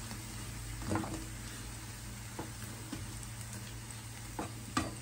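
Paneer pakoras sizzling steadily in shallow oil in a frying pan, with a few short knocks of a spatula against the pan as they are lifted out.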